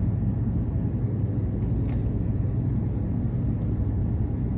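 Steady low rumble of background noise, with one faint click about two seconds in.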